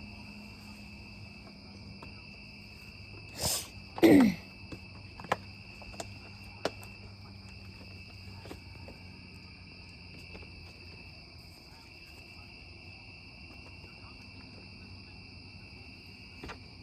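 Steady chorus of night insects chirring at two high pitches. About four seconds in, right after a brief breathy burst, comes one short, loud sound that drops in pitch, followed by a few faint clicks.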